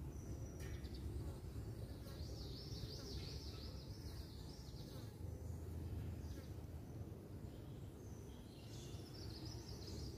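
A small bird sings a fast, high warbling trill from about two seconds in, and again near the end, over a steady low outdoor rumble.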